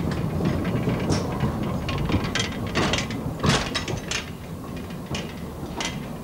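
Small flat rail wagon rolling along the track, its steel wheels rumbling steadily with irregular clanks and knocks of metal and wood, the loudest a little past the middle.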